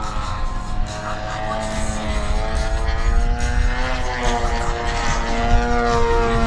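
Engine of a radio-controlled aerobatic model airplane in flight, its pitch drifting slowly up and down with the throttle, over a low rumble.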